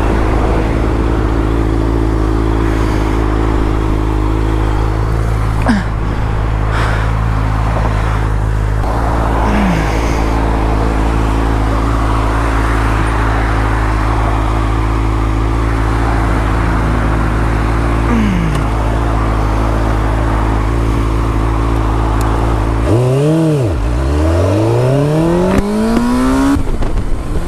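2005 Suzuki GSX-R600's inline-four idling steadily while a few vehicles pass with falling pitch. About 23 seconds in it revs and pulls away, its pitch climbing as it accelerates, with wind noise on the microphone.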